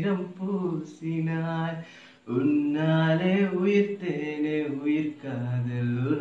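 A man singing unaccompanied, holding long notes, with a short pause for breath about two seconds in.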